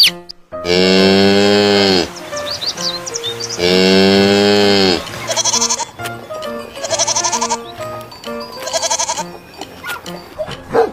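Farm animal calls: two long drawn-out calls with a falling pitch, then three shorter wavering bleats, over background music.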